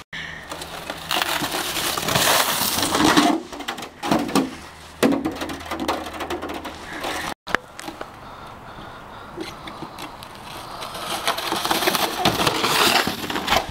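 Plastic saucer sleds scraping and sliding over packed snow, with snow crunching and knocks. The sound cuts off abruptly twice.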